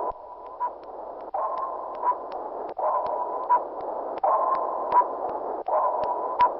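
Submarine sonar sound effect: a steady high tone over hiss that comes in repeating cycles about every second and a half, with sharp clicks scattered through it.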